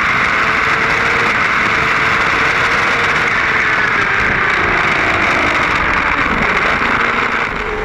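BMW S1000RR's inline-four engine at high revs, heard from a camera on the bike and largely drowned by heavy wind rush. In the second half the engine note falls away as the bike brakes hard from over 210 km/h.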